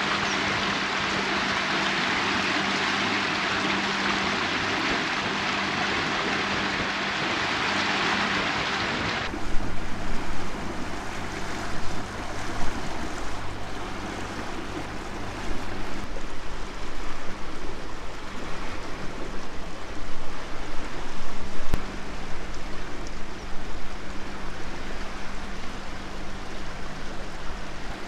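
Small houseboat under way: its motor hums steadily under water rushing along the hull. About nine seconds in the sound changes abruptly to a lower motor hum with wind gusting on the microphone.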